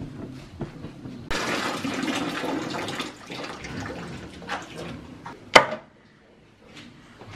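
Water splashing and sloshing in a plastic basin as a plucked chicken is washed by hand, starting suddenly about a second in and easing off after a couple of seconds. Near the end, a single sharp loud knock.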